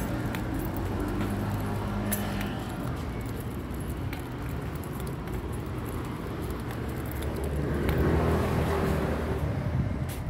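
City street traffic: a motor vehicle's engine running close by over a steady low rumble, growing louder about eight seconds in.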